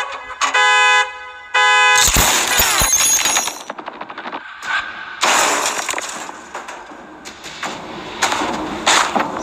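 A horn-like tone sounding in three short blasts, then a sudden loud crash with breaking and a low rumble about two seconds in, followed by a stretch of rough, noisy film sound effects.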